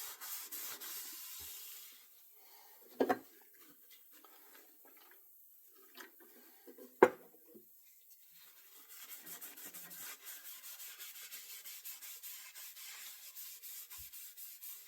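Hand rubbing back and forth along a wooden ash axe handle, working finish into the wood. The strokes ease off after about two seconds, with a knock about three seconds in and a sharp click about seven seconds in. Steady, rhythmic rubbing strokes resume about nine seconds in.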